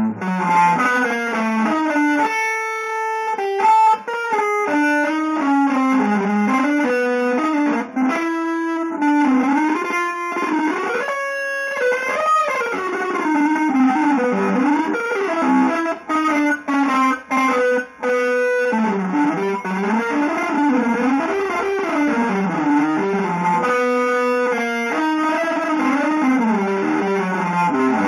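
Electric guitar playing a solo improvised line through effects: fast, winding runs of single notes that climb and fall, broken by a few short pauses about two-thirds of the way through.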